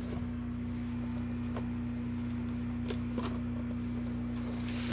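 Steady low electrical-sounding hum in the room, with a few faint clicks of plastic VHS cassettes and cases being handled.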